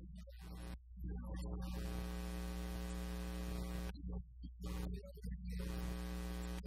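Steady electrical mains hum and buzz with a stack of even overtones, breaking off briefly about a second in and again around four seconds in. It is a fault in the audio feed, and it masks the preacher's voice.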